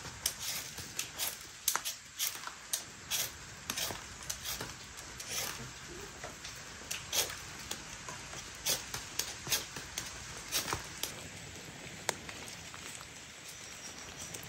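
Knife scraping and chipping the peel off a root: a run of irregular short, sharp scrapes and clicks, a few a second, fewer near the end.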